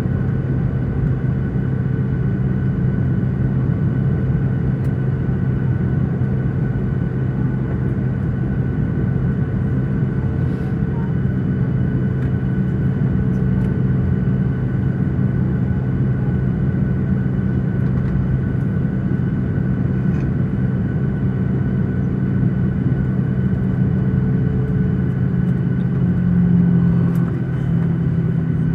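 Cabin noise inside a Boeing 737-900 taxiing, its CFM56-7B engines running at idle: a steady low hum with a few steady higher tones, swelling briefly near the end.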